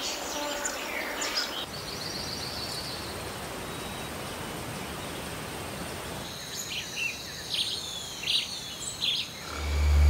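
Rainforest ambience: a steady hiss of background noise with scattered high bird chirps and trills, busier in the second half. A low hum swells in near the end.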